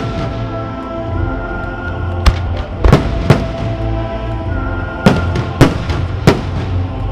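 Firework shells bursting in sharp bangs, about six of them between two and six and a half seconds in, over music with sustained notes played for a musical fireworks display.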